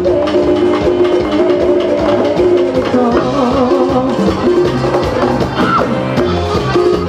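Live band playing Latin dance music without vocals: a sustained melody over a steady percussion beat.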